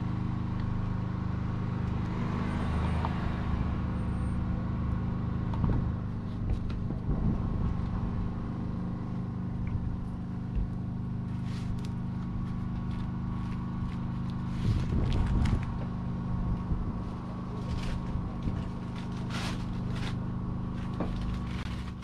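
A steady engine hum, even and unchanging, with scattered clicks and knocks over it; it cuts off at the very end.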